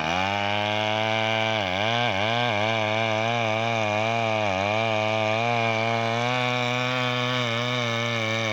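Two-stroke chainsaw running at high revs, starting abruptly. Its pitch dips briefly a few times in the first few seconds as it bogs under load in the cut, then holds steady.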